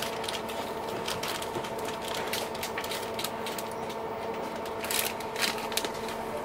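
Steady machine hum holding a few fixed tones, with scattered clicks and rattles over it and a denser cluster of them about five seconds in.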